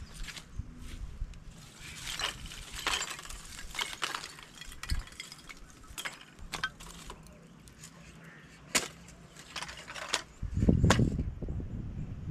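Scattered light clinks and clicks of kitchenware being handled, with a louder dull thump about ten and a half seconds in.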